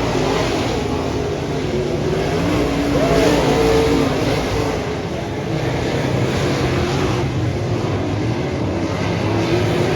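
Dirt modified race car engines running hard, the engine note rising and falling as the cars rev through the turns and accelerate down the straights.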